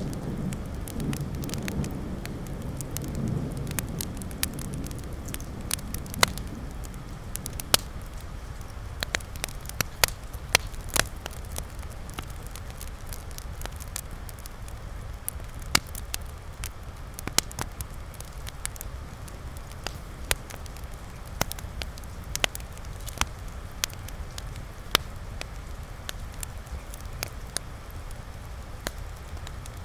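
Wood fire crackling, with irregular sharp pops over a soft steady hiss of rain. A low rumble of thunder dies away over the first few seconds.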